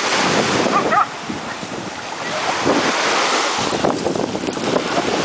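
Small waves washing onto a sandy beach, with wind on the microphone, and a dog giving a short call about a second in.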